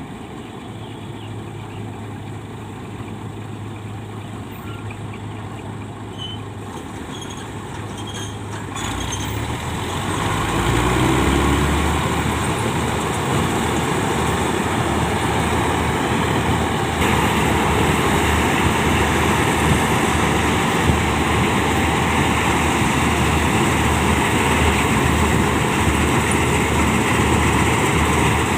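Combine harvester running as it harvests rice: a steady engine and machinery drone. It grows louder over the first ten seconds or so, then holds steady.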